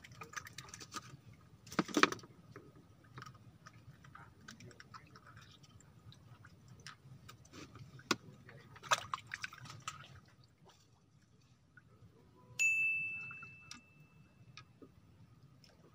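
Scattered light clicks and taps as fishing rods and reels are handled on a bamboo raft, then about twelve and a half seconds in, a single bell-like ding that rings and fades over about two seconds.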